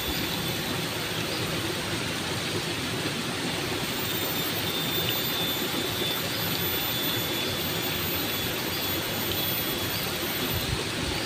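Steady, even rushing of flowing river water, with a faint high steady tone over it.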